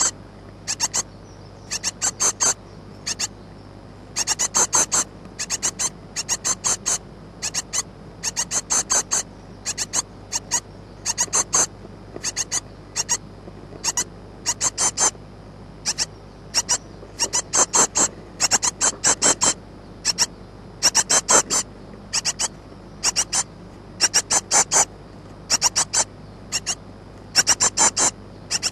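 Great tit nestlings begging for food: high-pitched peeping calls in quick runs of several notes, repeating about once a second.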